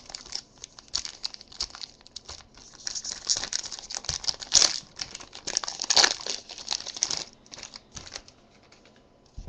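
Foil wrapper of a Topps Strata trading-card pack crinkling and tearing as it is opened by hand and the cards are slid out. The crackle is densest in the middle, with a few sharp cracks, and thins out near the end.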